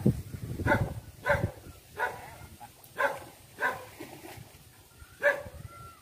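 A dog barking repeatedly: about six short barks, spaced roughly a second apart.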